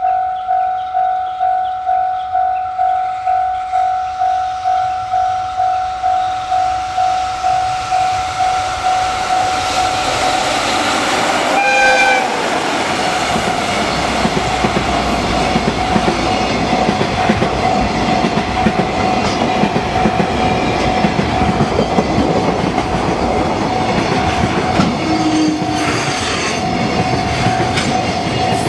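Japanese level-crossing warning bell ringing about twice a second. About twelve seconds in, an EF66 electric locomotive gives one short horn blast, and a container freight train then runs past with a steady rumble and wheel clatter that swamps the bell.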